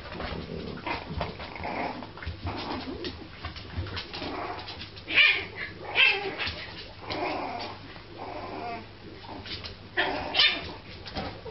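French bulldog puppy making a string of small whines and yaps at a cat, inviting it to play, with four sharper yaps: two around five to six seconds in and two around ten seconds in.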